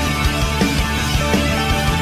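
Background rock-style music with a beat.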